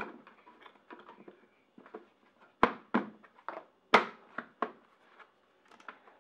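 Irregular sharp clicks and knocks as a new air filter is worked into the airbox of a Suzuki Bandit 1200, the two loudest about two and a half and four seconds in.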